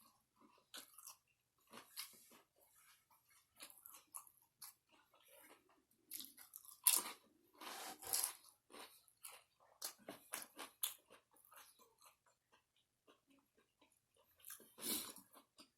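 Close-miked chewing and crunching of a bitten chicken salad sandwich with lettuce, pickles and onions: irregular small crackles and wet mouth clicks, loudest about halfway through and again near the end.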